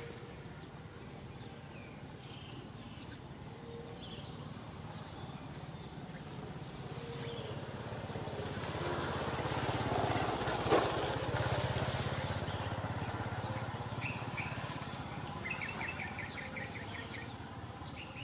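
Small birds chirping, with a quick run of repeated notes near the end, over a vehicle passing in the distance whose noise swells to a peak about halfway through and then fades. A single sharp click sounds at the peak.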